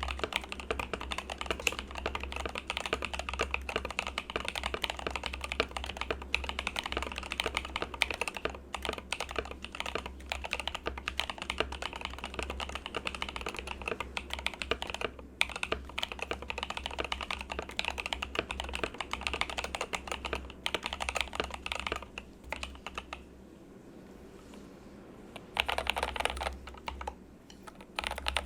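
Mechanical keyboard (Rama Works U80 with Raed v2.1 switches) being typed on fast and steadily. After about 23 s the typing stops, and near the end come a few short groups of single presses on the modifier keys.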